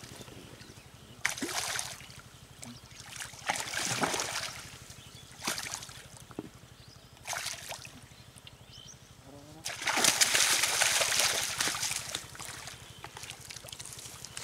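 A hooked fish thrashing at the surface of a pond, making separate bursts of splashing every couple of seconds. The longest and loudest splashing comes about ten seconds in, as the fish is scooped into a landing net.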